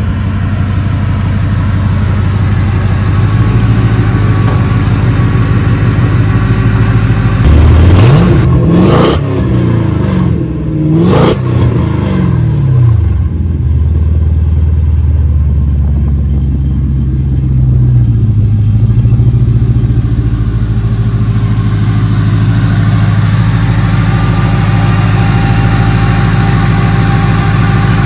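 LS V8 in a 1949 Chevy 3100 pickup running at idle through its exhaust. It is revved twice, about eight and eleven seconds in, the pitch rising and falling back each time before it settles to idle again.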